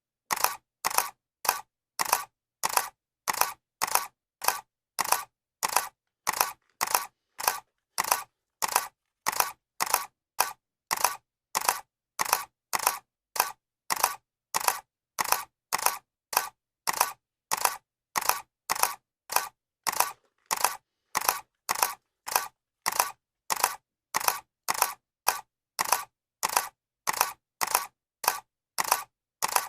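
Camera shutter clicking sound effect repeating at an even pace, about two sharp clicks a second.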